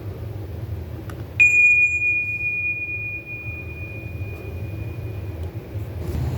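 A single metallic ding about a second and a half in: one high ringing tone that fades out over about four seconds, over a steady low rumble.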